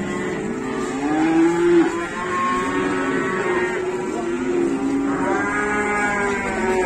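Several cows mooing, long drawn-out calls that overlap one another, one starting as another ends.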